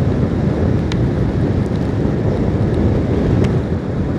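Wind buffeting the microphone of a moving Honda Unicorn motorcycle, a steady low rush with the bike's single-cylinder engine running underneath.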